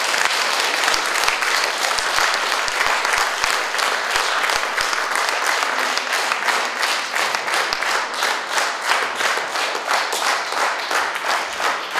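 An audience applauding in a hall. In the second half the clapping grows more even and rhythmic, at about three claps a second, and it fades near the end.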